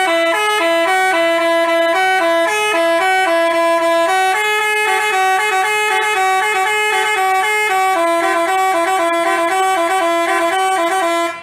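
Basuri multi-tone telolet bus horn playing a quick tune of short stepping notes, sounding without a break and cutting off sharply just before the end.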